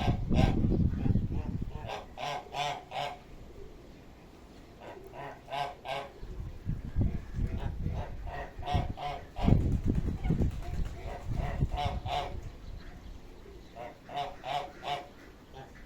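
A bird honking over and over, its calls coming in short runs of two to four. Gusts of wind buffet the microphone near the start and twice more partway through.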